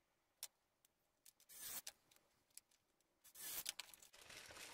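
Pine boards being handled and lined up on a wooden floor: a few faint clicks and knocks, a short scrape near the middle, then a longer stretch of scraping and light knocking near the end.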